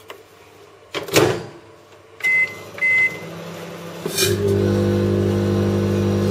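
Microwave oven being started: a loud clunk, two short keypad beeps, then the oven switches on about four seconds in with a loud, steady electrical hum.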